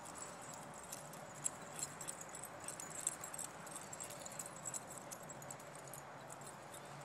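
Steady outdoor background hiss with scattered faint metallic clicks and jingles, most of them between about one and five seconds in.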